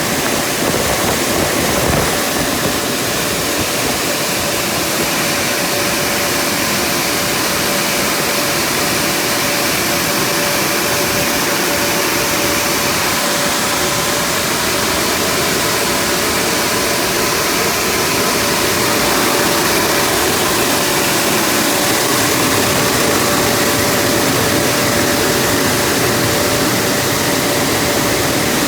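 Superior car wash dryers blowing steadily: a loud, even rush of air with a steady hum running through it.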